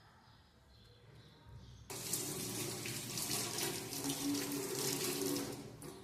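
Kitchen tap turned on about two seconds in, water running steadily into the sink, then shut off near the end.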